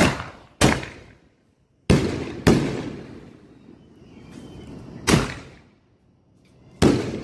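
Aerial fireworks launching from their tubes and bursting overhead: six sharp bangs over about seven seconds, each trailing off in an echo.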